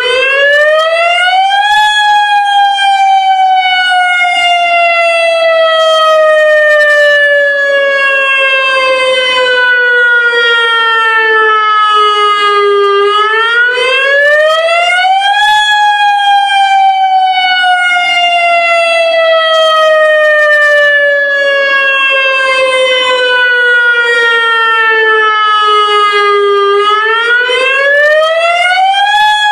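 Federal Signal Modulator electronic siren sounding a lahar warning test: a loud tone that climbs quickly in pitch over about two seconds, then falls slowly for about eleven seconds, repeating, with three climbs in all.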